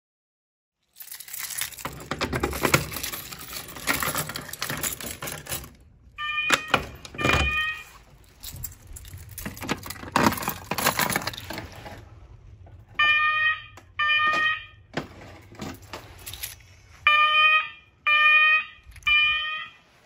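Fire alarm horns sounding in a three-blast temporal pattern, the first blasts heard about six seconds in and a full set of three near the end. Loud rustling, clattering and footsteps of handling and walking fill the gaps, loudest at the start.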